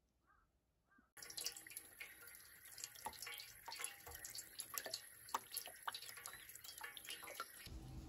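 Meltwater dripping off icicles into a plastic basin: irregular drips and small splashes that start about a second in.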